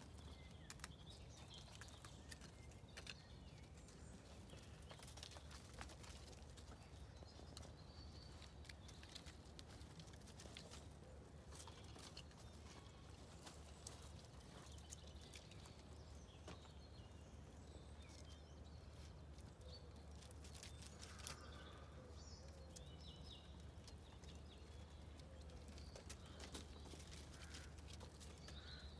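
Near silence with faint, scattered clicks and scuffs of puppies' paws and claws scrambling over stacked firewood logs, and a few faint bird chirps.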